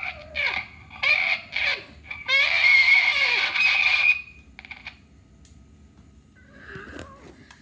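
A person imitating a cat's meows with cupped hands close to a microphone: several short wavering cries, then one long loud meow about two seconds in, each falling in pitch at the end, and a faint one near the end.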